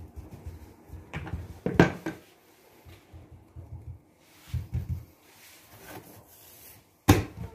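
Hands pressing, patting and smoothing a sheet of donut dough flat on a wooden countertop: soft rubbing and dull thuds, with sharper knocks a little under two seconds in and near the end.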